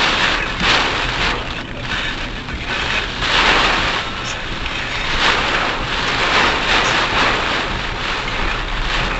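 A car driving in typhoon rain and wind, recorded inside the car by its dash camera: steady road rumble under a hiss of rain and spray that swells irregularly with the gusts.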